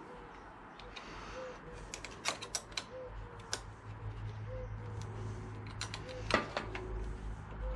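Small metallic clicks and ticks of a spanner working the clutch master cylinder's clamp bolts on a motorcycle handlebar as they are nipped up tight. One louder clack comes about six seconds in.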